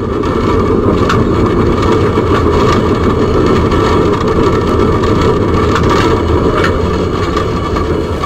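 Tram running along its track, heard from inside the driver's cab: a steady low rumble with a constant tone above it and a few irregular clicks.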